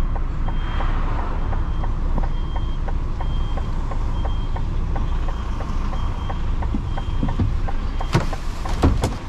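DAF truck's diesel engine idling while its reversing alarm beeps, a short high beep a little more than once a second, with a few clunks near the end.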